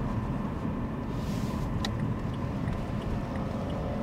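Steady low rumble of a car's engine and tyres heard from inside the cabin while driving at low speed, with a brief hiss about a second in.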